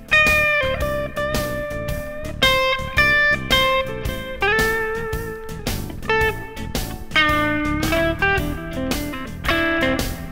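Background music: electric guitar playing over a steady drum beat.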